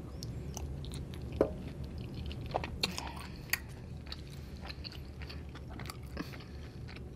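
A person chewing a mouthful of Cajun fettuccine pasta: soft, wet mouth clicks and smacks at irregular intervals.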